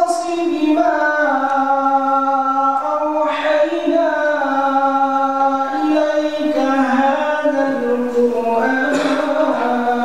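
A man's solo voice reciting the Quran in melodic tilawah style, holding long ornamented notes that glide from pitch to pitch. Brief hissing consonants break in twice, about three seconds in and near the end.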